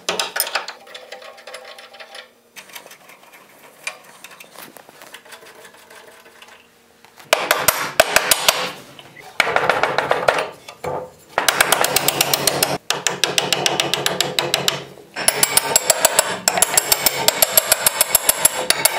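Power impact driver hammering on a bolt of a wagon's iron brace in several runs of rapid clicking from about seven seconds in. Before that come only light clinks of a wrench on a nut.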